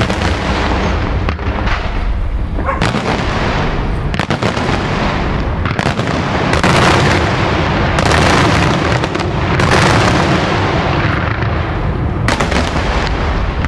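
Daytime aerial fireworks shells bursting in a dense, loud barrage of overlapping bangs, with sharper reports standing out every second or two.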